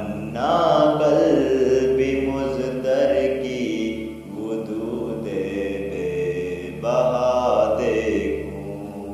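A man's voice chanting an Urdu naat (devotional poem) in long, drawn-out phrases over a steady background drone.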